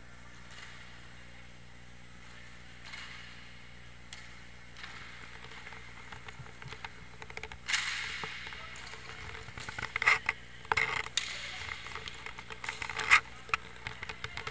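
Inline hockey play close to the goal: the rolling and scraping of inline skate wheels on the rink floor, with a run of sharp clacks of sticks and puck in the second half.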